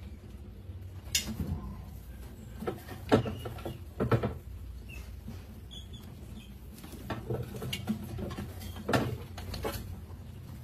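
Mice scrabbling on a glass-tank mouse trap, with irregular knocks and clatters of the trap's wooden tipping flap and of mice dropping into the tank. The loudest knocks come a little after three seconds in, about a second later, and near nine seconds, over a low steady hum.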